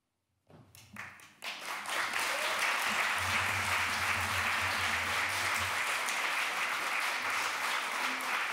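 Audience applauding. A few scattered claps about half a second in swell within a second or so into steady applause from a large crowd.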